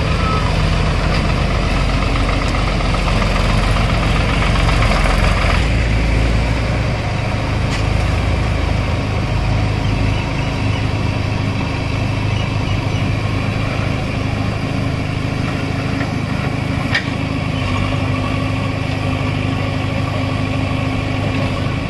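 Diesel engine of a JCB 3DX backhoe loader running steadily while its hydraulics hold and shift the machine up on its bucket and stabiliser legs, with a single brief click about seventeen seconds in.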